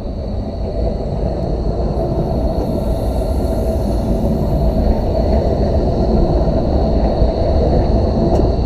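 Bombardier Flexity Berlin low-floor tram running past close by, a steady low rumble of wheels on rail with a steady whine above it, growing slightly louder as it nears.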